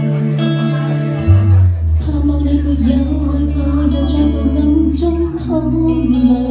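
Live band playing a song's instrumental intro: sustained bass notes shifting about a second in and again near the end, with guitar and keyboard above.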